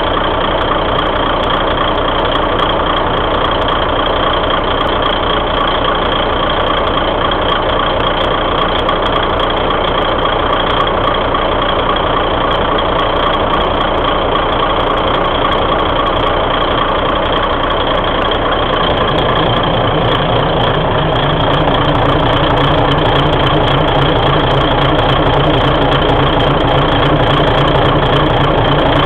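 Underfloor diesel engine of a KiHa 200-series railcar idling steadily, heard close up beneath the car. It gets a little louder and deeper about two-thirds of the way in.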